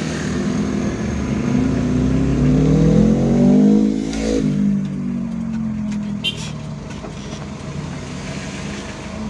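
A vehicle engine revving up, its pitch rising for about three seconds, then dropping sharply at a gear change about four seconds in and running on steadily, over road and wind noise.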